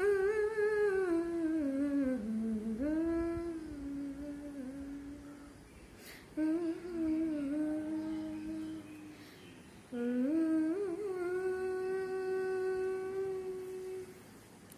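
A boy humming a slow melody with his mouth closed, in three phrases: the first dips down and climbs back up, and the last is held on one steady note for about three seconds.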